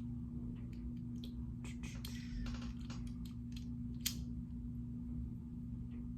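Crimping tool being squeezed onto an RJ45 connector: scattered small clicks and rattles of the tool and plastic plug, with one sharp click about four seconds in as the crimp closes. A steady low hum underneath.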